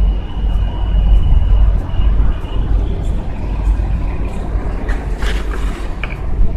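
Uneven low rumble of wind buffeting the microphone, with a faint thin whistle in the first couple of seconds and a brief rustle about five seconds in.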